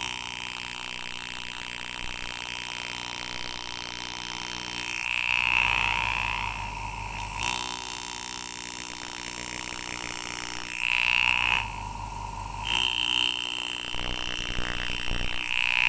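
Flat graver cutting petals into a silver-overlaid copper rivet. The tool sounds steadily in three runs of a few seconds each, with short pauses between the cuts.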